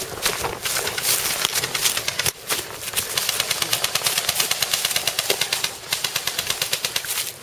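Airsoft guns firing: scattered shots at first, then a long run of rapid, evenly spaced full-auto shots through most of the second half.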